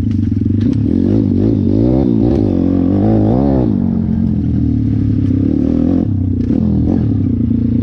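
Dirt bike's 150 cc YX four-stroke single-cylinder engine under way, its revs rising and falling repeatedly in the first half, then running steadier. Short rattles and clatter run through it.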